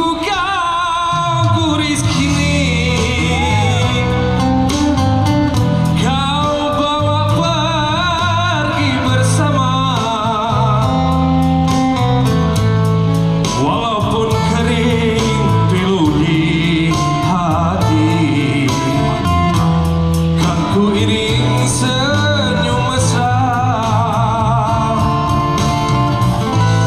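A live band playing through a PA speaker: a male singer sings a slow melody with vibrato over acoustic and electric guitars, a bass line and drums.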